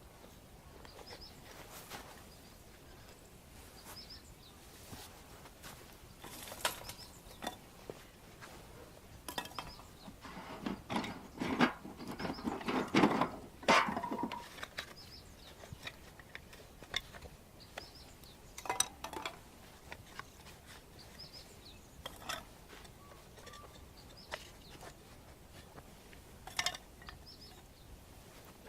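Small birds chirping over outdoor quiet, with scattered clinks and knocks of things being handled. A busy run of louder knocks and clatter comes about a third of the way in.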